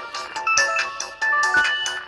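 Samsung GT-C3592 mobile phone ringtone playing: a quick electronic melody of short, bright notes over a percussive beat.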